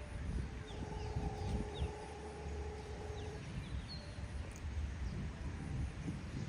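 Birds chirping in short, quick notes over a steady low rumble. A steady humming tone runs for about three seconds near the start.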